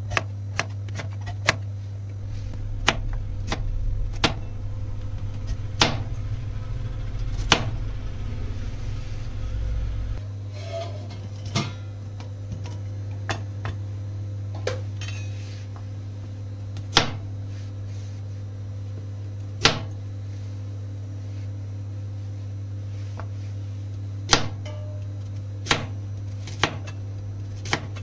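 Large kitchen knife chopping vegetables on a plastic cutting board: single sharp knocks, about one a second at first, then spaced a few seconds apart, over a steady low hum.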